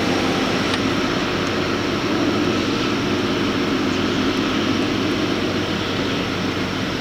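Hydraulic fracturing pump trucks running during a frac stage: a steady engine drone that holds level throughout.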